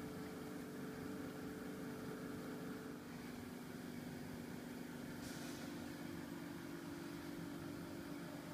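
Steady low hum with a faint hiss: background room tone. Its pitch drops slightly about three seconds in.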